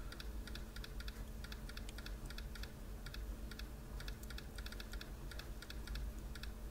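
Touch-typing on a laptop keyboard: irregular key clicks at a slow, deliberate pace of a few keystrokes a second.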